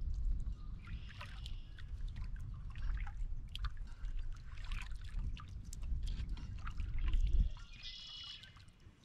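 Water lapping and trickling against a canoe hull, with a heavy low rumble of wind on the microphone that drops away about seven and a half seconds in. A bird calls briefly near the end.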